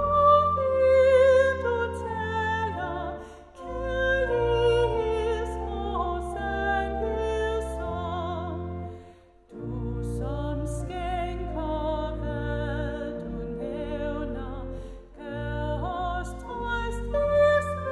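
A woman's solo voice singing a Danish hymn with vibrato, over a church organ holding steady bass notes. Both stop briefly for a pause between lines about halfway through, then carry on.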